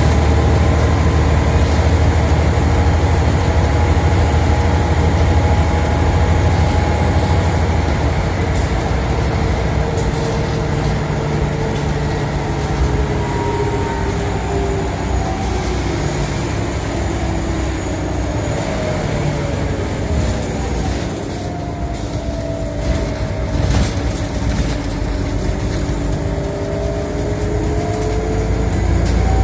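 Scania OmniCity bus heard from inside the passenger saloon: engine and drivetrain rumbling with whining tones. The tones fall in pitch as the bus slows around the middle, then rise again as it picks up speed near the end.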